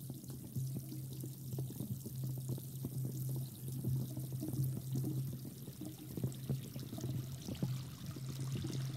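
Water running steadily, like a tap or shower, with a low steady hum beneath it.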